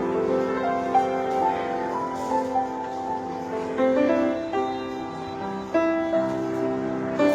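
Piano playing a slow Thai popular song, a melody over held chords with new notes struck every second or so.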